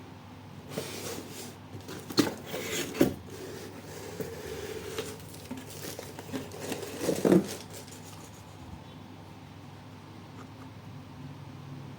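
Shoebox and packing being handled during unboxing: rustling with sharp knocks and taps, the loudest about two, three and seven seconds in. The handling stops at about eight seconds, leaving only a low steady background.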